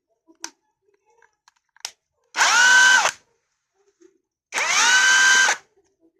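Battery-powered drill run twice in short bursts, the motor whining up to speed each time and then stopping, as the repaired battery pack is tested. A couple of faint clicks come before the first run.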